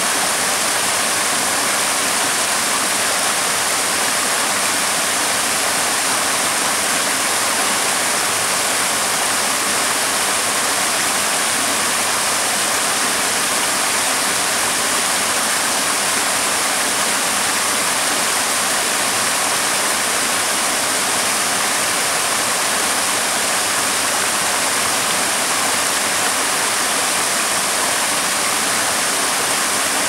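Small staircase waterfall on a forest creek, falling in steps into a shallow rocky pool: a steady, unbroken rush of water, more hiss than rumble.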